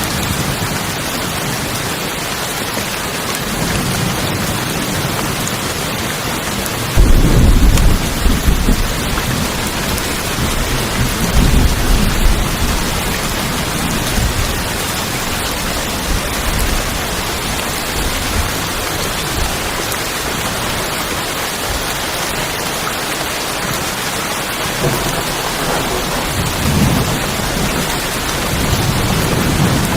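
Steady rain falling on a tin roof, with rumbles of thunder, the loudest starting about seven seconds in and another around eleven seconds, and weaker rolls near the end.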